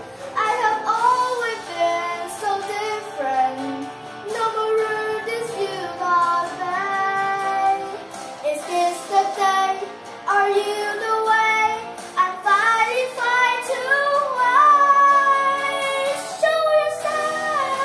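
A young girl singing into a microphone over backing music, with long held notes that glide up and down.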